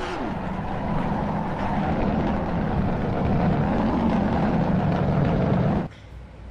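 Toy race car running, a steady engine-like whir that cuts off suddenly about six seconds in.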